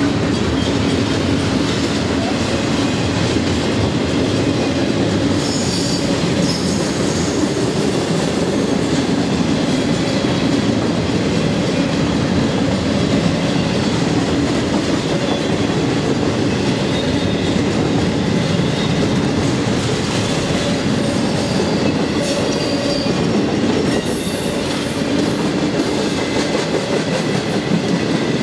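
Cars of a double-stack intermodal freight train rolling past close by: a steady, loud rumble and clatter of steel wheels on rail, with a thin high wheel squeal joining in over the last few seconds.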